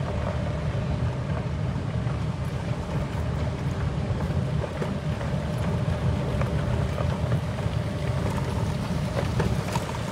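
A small vehicle driving along a dirt road: a steady low rumble of motor and tyres, with a faint steady hum.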